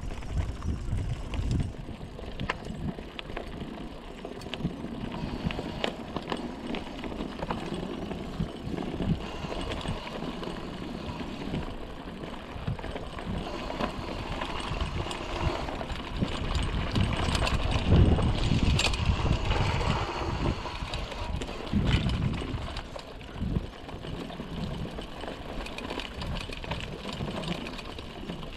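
Mountain bike rolling over a rough trail: a steady noisy rumble with frequent short rattles and knocks from the bike over bumps, loudest and busiest about seventeen to twenty seconds in.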